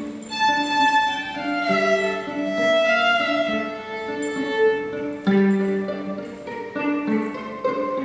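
Live violin playing a slow melody of long held bowed notes, over a repeating figure of short, lower notes.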